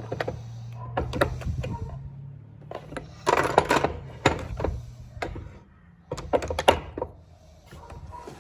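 Hand tools being handled and set down in a wooden tool chest, knocking and clattering in three bursts of clicks and knocks, the loudest a dense clatter about three seconds in. A low steady hum runs underneath.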